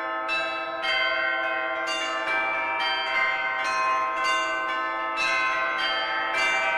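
A peal of bells struck one after another, about two strikes a second, each ringing on under the next, like church bells ringing changes.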